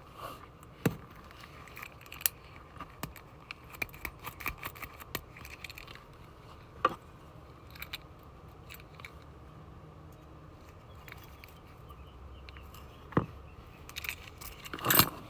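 Small metallic clicks and taps from a Schlage pin tumbler lock cylinder, its key and pins being handled during rekeying, with a few sharper knocks spread through and a run of quick small ticks in the middle.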